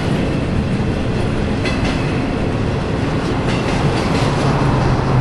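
Westbound BNSF freight train of empty intermodal flatcars rolling past on the climb up Cajon Pass: a steady rumble with wheel clicks over the rail joints. A low steady drone comes in about four seconds in.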